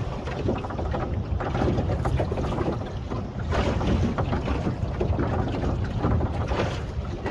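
Small boat at sea: a continuous low rumble of wind buffeting the microphone and water against the hull.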